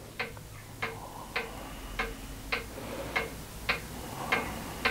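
Steady mechanical ticking, a little under two sharp ticks a second, evenly spaced, over a faint low hum.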